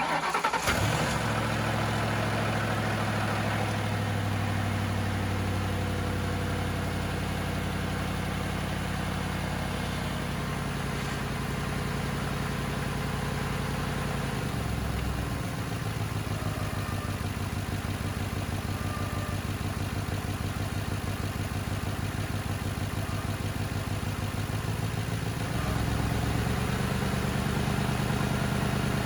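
Ford Crown Victoria's 4.6-litre V8 starting, then idling. It runs a little faster for the first seconds before settling. The idle dips briefly about halfway through and picks up slightly near the end.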